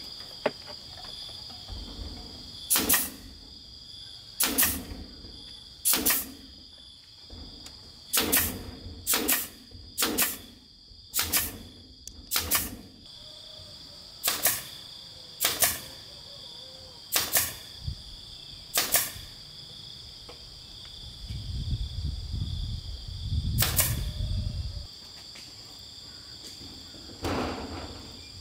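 Hammer striking wood overhead: about fifteen sharp single blows, irregularly spaced a second or two apart, with a low rumble about three-quarters of the way through. Insects drone steadily at a high pitch throughout.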